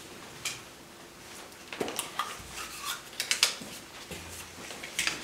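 Plastic draw balls clicking and clinking against the metal of a silver trophy cup as one is drawn and opened: a scattering of light, irregular clicks and knocks.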